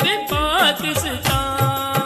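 Urdu patriotic song about Pakistan: a sung line glides up and down, then settles into a held note near the end over a steady beat.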